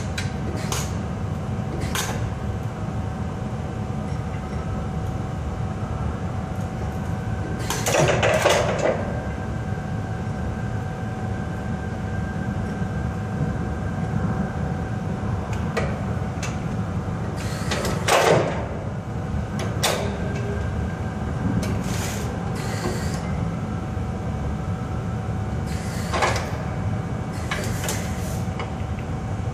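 Steel forklift mast being hoisted by an electric reach truck, with a steady low mechanical hum and a faint whine underneath. Heavy metal clanks ring out about eight seconds in and again around eighteen seconds, with a smaller knock near the end and lighter clicks between.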